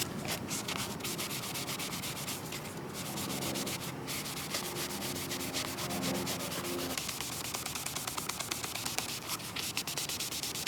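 Abrasive rubbing on a car's painted panel, a steady fast scratchy rasp as the touch-up area is sanded down.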